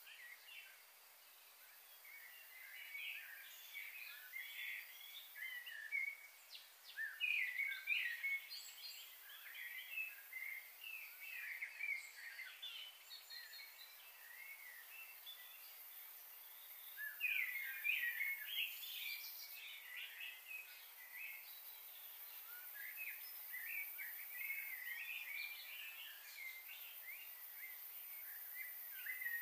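Small birds chirping and twittering in busy, overlapping bursts that come and go, over a faint steady hiss.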